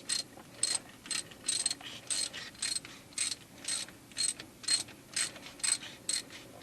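Ratchet wrench clicking as it is worked back and forth to tighten the oil filter cover on a Honda Pioneer 700: a steady run of sharp pawl clicks, about two a second.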